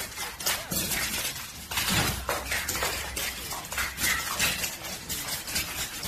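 Rapid clattering and scraping of a dog's and a cat's claws and paws on a hard marble floor during a play fight, a dense run of sharp clicks and scuffs.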